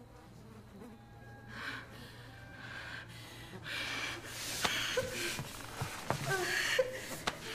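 A frightened woman's shaky breathing and whimpering, faint at first and louder from about three seconds in, with a couple of sharp clicks.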